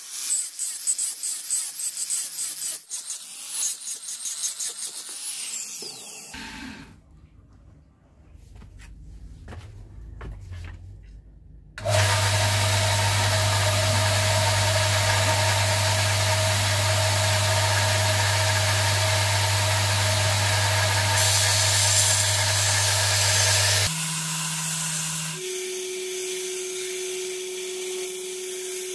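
Angle grinder grinding a steel knife blade with a rasping, pulsing sound for the first several seconds, then stopping. About twelve seconds in, a belt grinder's electric motor starts abruptly and runs with a loud steady hum as the blade is ground on the belt. Near the end the sound drops to a quieter, steady tone.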